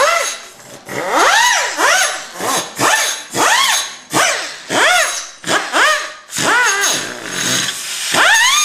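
Small right-angle die grinder with a red abrasive disc revved in about a dozen short bursts, its whine rising and falling in pitch with each pull of the trigger.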